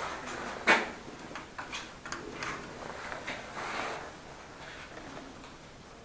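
Irregular light clicks and knocks, with one sharper knock under a second in.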